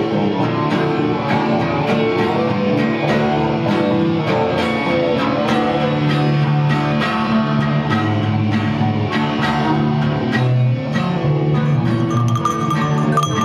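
Acoustic guitars playing an instrumental passage with a regular strummed rhythm. Near the end a bright tinkling joins in.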